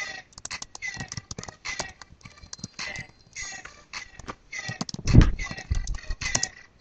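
Irregular clicks, taps and rustling from hands moving right by the microphone, with a heavier bump about five seconds in.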